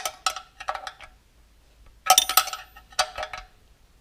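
Steel wrench clinking against a bolt and a thin tin oil trough inside a tractor transmission case as the bolt is turned. There are two bursts of quick metallic clinks with a light ring: one at the start and another about two seconds in.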